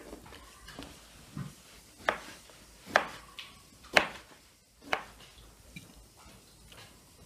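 Knife chopping a pickled cucumber on a wooden cutting board: four sharp knocks, about one a second.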